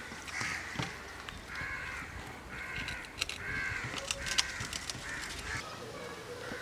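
A crow cawing repeatedly, about six harsh caws of half a second each.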